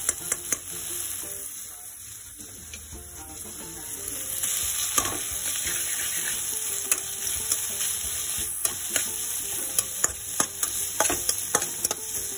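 Chopped onions, tomatoes and peppers sizzling in oil in a non-stick wok while a metal spatula stirs and scrapes them, with frequent sharp clicks of the spatula against the pan. The stirring eases for a couple of seconds, then picks up again and grows louder about four seconds in.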